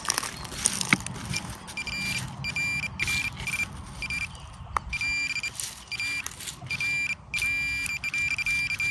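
Handheld metal-detector pinpointer beeping with a high steady tone that keeps switching on and off as it is swept over loose dug soil, signalling metal in the dirt. A low hum of road traffic runs underneath.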